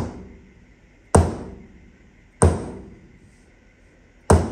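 Soft-faced mallet striking the heated MaxiDrive intermediate gear set, three sharp blows about a second and a quarter apart, each with a short metallic ring. The blows drive the tapered roller bearing down until it seats against its circlip.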